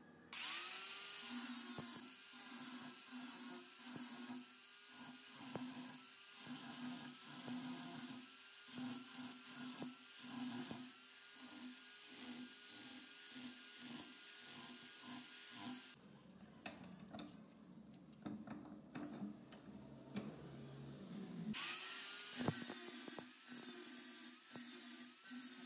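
Angle grinder with an abrasive disc grinding a steel hammer head: a high whine with a grinding hiss, the motor pitch dipping and recovering again and again as the disc bites into the metal. It stops for about five seconds past the middle, then starts up and grinds again.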